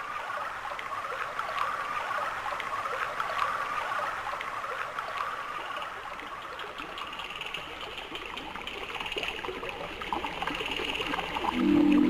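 Steady trickling, babbling water, like a small stream.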